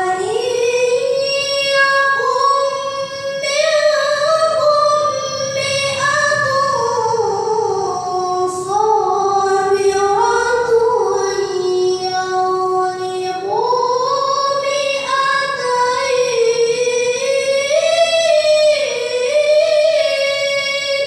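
A child qori reciting the Quran in melodic tilawah style: one long, highly ornamented phrase in a high child's voice, rising and falling in pitch and held almost without a break.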